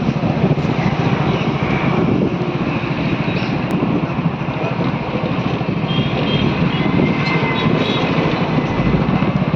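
A vehicle engine running steadily, with an even low rumble and no break.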